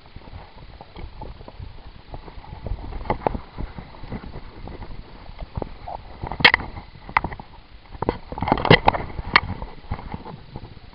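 Movement and handling noise from an airsoft player's gear: irregular knocks, clicks and rustles as he walks on dirt and handles his rifle. The sharpest knocks come in a cluster from about six to nine seconds in.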